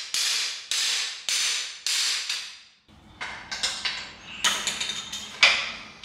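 Hammer blows on the driver bar of a cam bearing tool, knocking a worn cam bearing out of an LS V8 engine block: four ringing metal strikes, a bit under two a second. They stop about halfway through, and lighter metal clinks and taps follow, with one sharp clank near the end.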